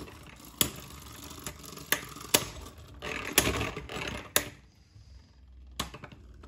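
Two Hasbro Beyblade Burst Pro Series tops spinning in a plastic stadium: a light whirring scrape of their tips on the stadium floor, broken by about half a dozen sharp plastic clacks as the tops knock together, the whir fading about two-thirds of the way through.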